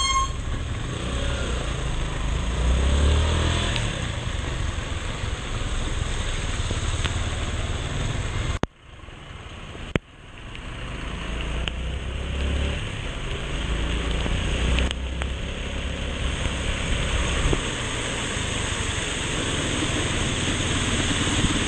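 Motorcycle riding in heavy rain: the engine runs under a steady rushing noise of wind and rain on the microphone and tyres on the wet road. The sound drops out abruptly for about a second and a half near the middle, then comes back.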